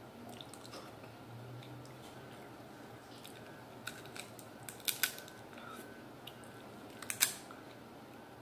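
King crab leg shell cracking and snapping, with a run of sharp cracks about four to five seconds in and the loudest pair near the end.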